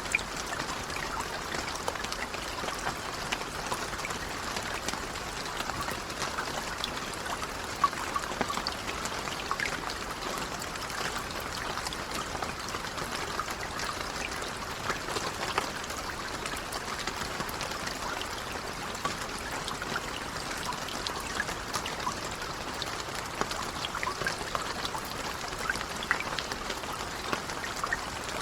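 Steady, gentle rain with many small drops pattering and dripping, and an occasional louder drop.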